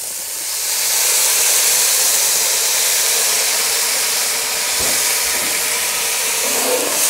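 Beef stock hitting a hot Dutch oven of frying bacon and butter, hissing and sizzling loudly as it flashes to steam. The hiss swells up about a second in and then holds steady.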